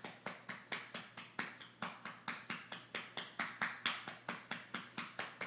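A hand patting a baby's back in a steady, quick rhythm, about four to five pats a second, to bring up a burp.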